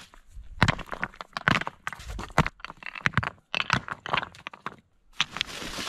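River rocks clacking and knocking together as they are handled and stacked, with gravel crunching underfoot and a longer scraping crunch of gravel near the end.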